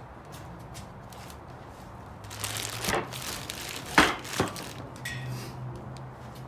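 Handling of a steel dip attachment: a crinkly rustle, then two sharp knocks about half a second apart, the first one about four seconds in and the louder of the two.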